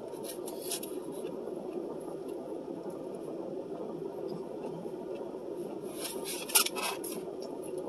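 Car air conditioner blowing steadily in the cabin, with close-up chewing and mouth clicks over it, a louder cluster of them near the end.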